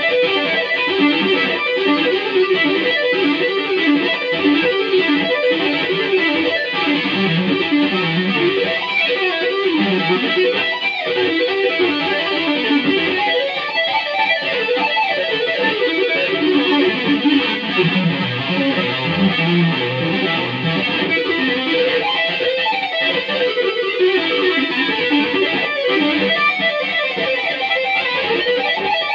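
Electric guitar played with two-handed tapping: fast, continuous runs of legato notes. It is a JEM-style guitar with DiMarzio pickups, played through a Zoom G1XN multi-effects pedal into a Marshall MG50DFX amp.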